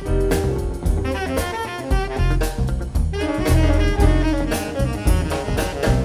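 Tenor saxophone playing a busy jazz line of quickly changing notes over a band's bass and drum kit, with frequent cymbal and drum strokes.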